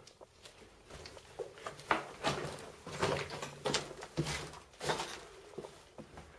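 Footsteps scuffing and crunching on a gritty floor in an enclosed brick passage, a cluster of sharp scrapes and knocks in the middle, quieter scattered clicks either side.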